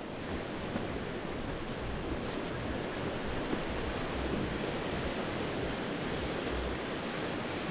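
Sea waves washing against a rocky shore: a steady rushing of surf that swells in over the first second, with irregular low rumbles underneath.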